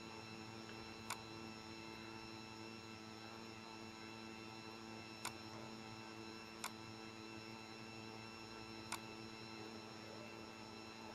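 Four sharp computer mouse clicks, spaced a few seconds apart, over a faint steady electrical hum.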